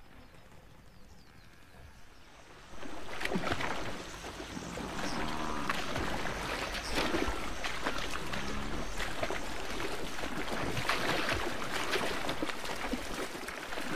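African buffalo herd moving through shallow water: constant splashing and trampling that starts suddenly about three seconds in, with a couple of low grunts from the animals.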